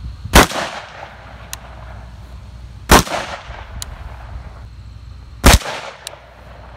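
Three single shots from a Daniel Defense DDM4 V5 AR-15 rifle, evenly spaced about two and a half seconds apart, each a sharp crack followed by a short fading echo.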